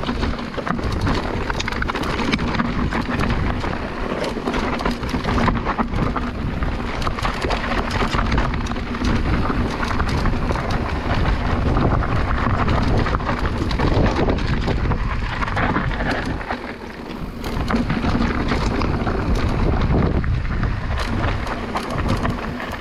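Mountain bike riding a rough, rocky trail: tyres rattling over stones and the bike clattering in a steady stream of knocks, with wind rushing over the microphone.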